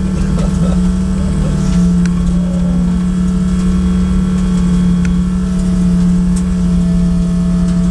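Single-turbo Dodge Stealth race car's V6 engine running steadily while the car rolls slowly, heard from inside the stripped, caged cabin as a steady drone. The pitch steps up slightly about two seconds in.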